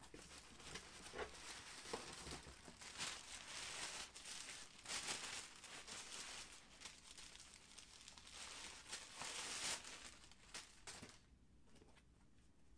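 Packing paper crinkling and rustling as a boot is pulled out of its box and unwrapped, with sharper crackles now and then; the rustling dies down near the end.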